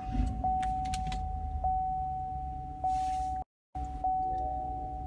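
Chevrolet Tahoe's electronic warning chime: one steady tone re-struck about every second and a bit, over a low rumble. A few sharp clicks sound about a second in.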